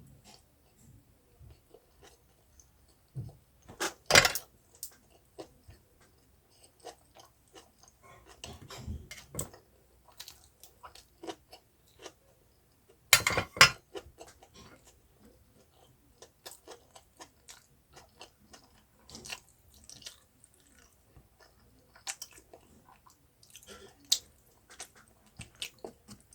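Close-up chewing and crunching of food: irregular small crackles and bites, with two louder crunches about four and thirteen seconds in.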